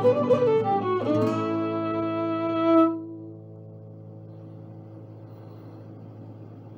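Fiddle and string accompaniment finishing a Scottish reel: quick running notes, then about a second in a long held final chord. It fades sharply after about three seconds, leaving a quiet low sustained tone.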